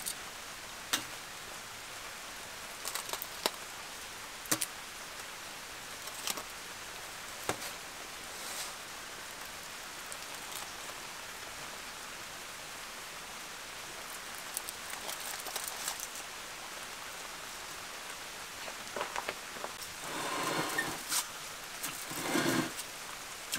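Wood fire crackling in a brick oven: a steady hiss with scattered sharp pops. Near the end a long-handled metal rake scrapes and clatters against the oven's brick floor a few times.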